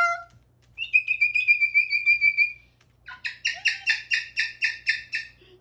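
Moluccan cockatoo calling: a held, slightly wavering whistle-like note for about two seconds, then after a short pause a fast run of pulsed calls, about six a second, lasting about two seconds.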